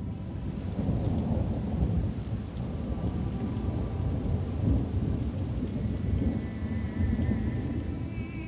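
Steady heavy rain with deep rolling thunder. Faint music comes in near the end.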